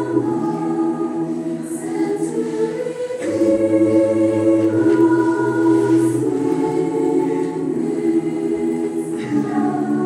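A choir singing slow, sustained chords, changing chord every second or few, with soft consonant hisses here and there.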